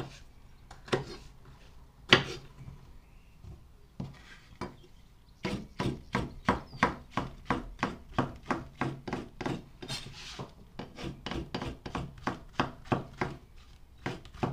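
Serrated bread knife cutting firm Dryad's saddle (pheasant's back) mushroom on a wooden chopping board, each cut ending in a knock of the blade on the board. A few separate cuts first, then from about five seconds in a steady run of slicing, about three cuts a second.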